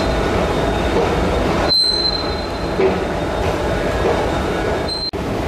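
Madrid Metro Line 10 train running loudly along the track through the station, with a thin high wheel squeal for under a second about two seconds in and again briefly near the end. The sound drops out for an instant shortly before the end.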